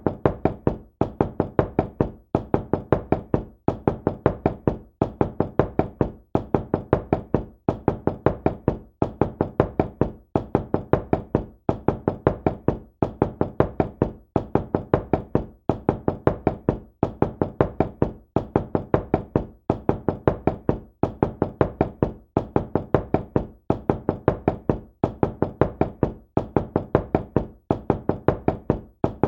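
Knocking on a door: quick groups of a few sharp raps, repeating over and over with short pauses between groups.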